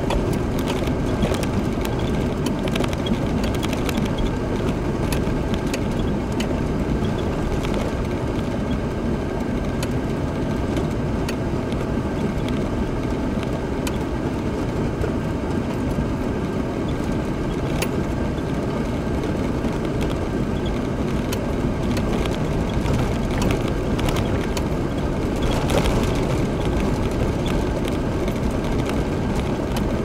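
Off-road vehicle driving along a rough dirt track: steady engine and tyre rumble, with frequent small rattles and knocks from the bumpy ground.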